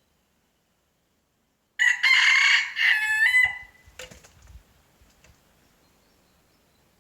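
A rooster crows once, a loud cock-a-doodle-doo lasting about two seconds that starts a couple of seconds in and ends on a drawn-out note, followed by a faint click.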